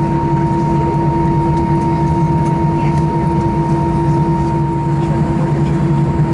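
Cabin noise inside an Airbus A320 taxiing after landing: the jet engines running at idle thrust as a steady drone with a few held tones.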